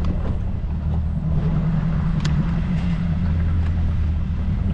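Outboard boat motor idling, a steady low hum, with a single sharp click about two seconds in.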